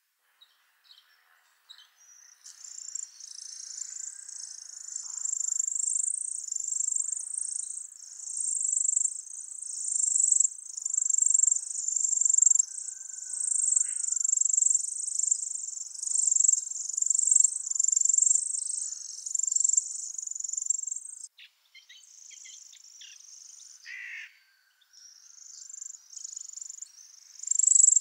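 European greenfinch nestlings begging for food at the nest: a fast, unbroken stream of thin, high-pitched chirps that starts about two seconds in. It stops briefly about three quarters of the way through and starts up again near the end.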